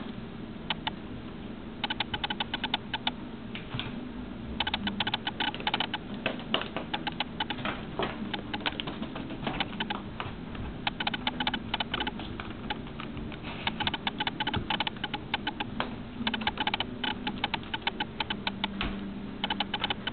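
Kitten's paws and claws scrabbling and tapping on a hard surface while it plays, in bursts of rapid clicks with short pauses between.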